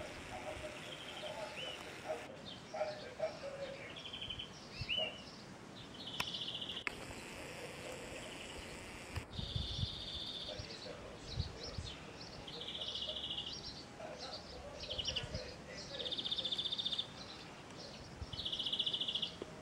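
Birds singing outdoors: a high, rapid trill of about a second, repeated every two to three seconds, with scattered short chirps in between.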